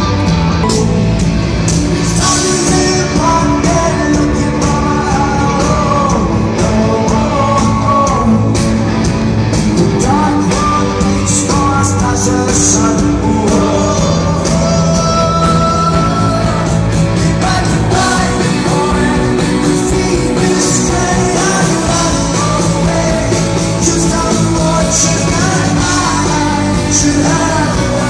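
Rock song with electric guitar, drums and a singing voice.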